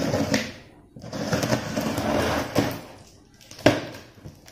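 Scissors drawn along the packing tape on a cardboard box, cutting in two long scraping strokes, with a sharp click about three and a half seconds in.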